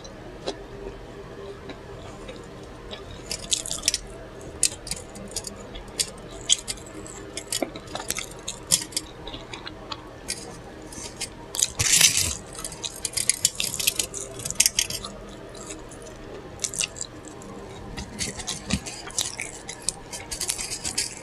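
Close-miked wet chewing and lip-smacking while eating a burger: a steady string of short moist clicks and squelches, with a longer, louder burst about twelve seconds in.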